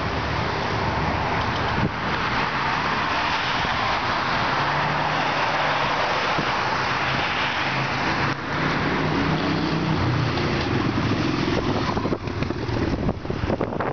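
Road traffic passing close by: a stake-bed truck goes past with a steady rush of tyre and road noise, then a motorcycle engine is heard through the second half as the bike approaches and rides past.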